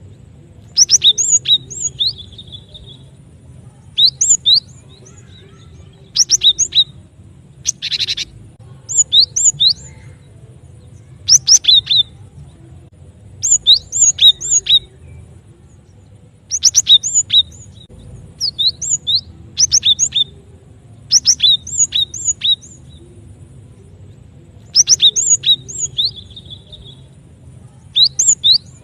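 Cinereous tit (glatik batu) song, used as a trapping lure: short phrases of two to four sharp, high whistled notes, repeated every one to two seconds over a faint low hum.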